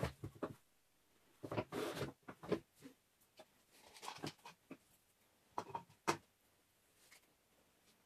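Plastic parts, a vacuum hose tube and a plastic bottle, being picked up, handled and set down on a plywood board: scattered light knocks and rustling, in clusters about one and a half to two and a half seconds in and around four seconds, then single knocks near six seconds.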